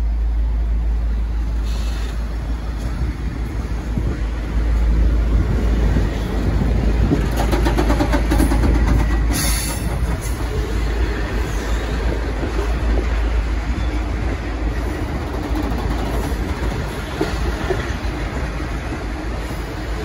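V/Line loco-hauled passenger carriages rolling past on departure, their wheels rumbling and clicking over rail joints and points. The clicking is densest around seven to ten seconds in.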